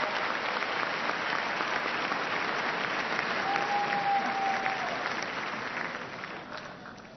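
Large audience applauding, the applause dying away over the last second or so.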